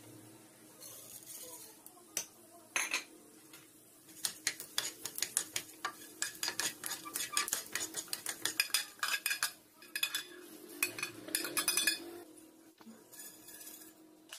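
Spoon clinking and scraping against a metal cooking vessel: a few single knocks, then quick runs of clatter from about four seconds in to about twelve seconds, with a short break in the middle.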